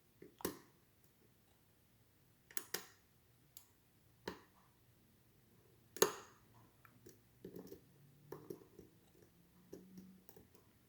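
Lock picks working an ASSA 700 lock cylinder: irregular sharp metallic clicks and light ticks as the pick and tension tool move the pins, the loudest click about six seconds in.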